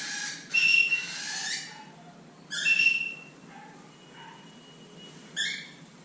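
Cockatiel giving about four short, shrill whistled calls, one after another.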